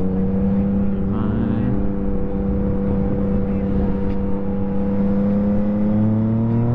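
2023 Yamaha MT-09 SP's three-cylinder engine through a full Akrapovič race exhaust, running at steady revs. Its pitch rises slightly near the end.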